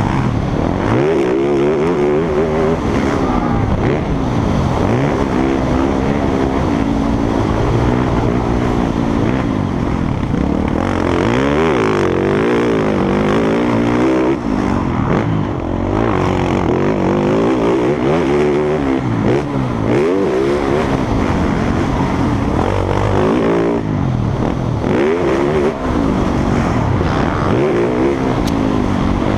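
Motocross bikes racing, their engines revving up and dropping back again and again, several overlapping.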